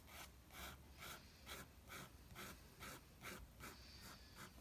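Faint, short scratchy drawing strokes on paper, about two a second, as lines are sketched in.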